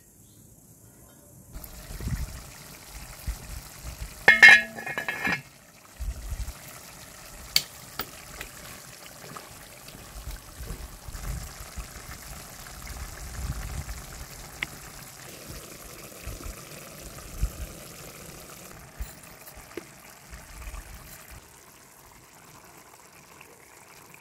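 Minced-meat and tomato sauce sizzling in a frying pan, with scattered clinks and soft knocks as potato and pepper slices are laid into it. A short, loud ringing sound comes about four seconds in.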